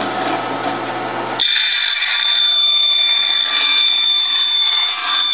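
Grizzly G0555P bandsaw running. About a second and a half in, the sound changes abruptly to a steady high-pitched whine with overtones as the blade cuts plywood.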